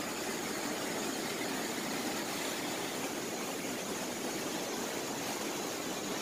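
Steady rush of falling water from a lit canal-bridge waterfall, an even hiss with no change in level.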